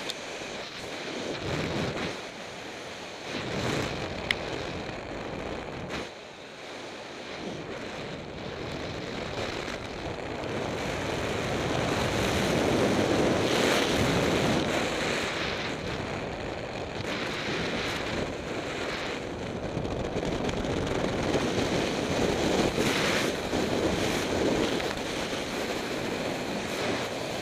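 Wind rushing over the camera's microphone during a parachute descent under an open canopy, an uneven rush that grows louder in the middle and again near the end. A brief click about four seconds in.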